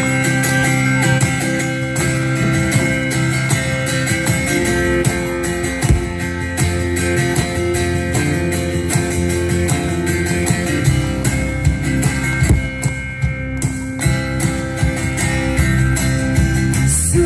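Live band playing an instrumental passage of a rock song: guitars with bass over a steady drum beat.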